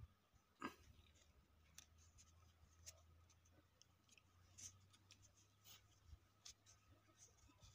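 Near silence with faint, scattered small clicks and rustles of a hand handling the mini power tiller's gear lever and its housing.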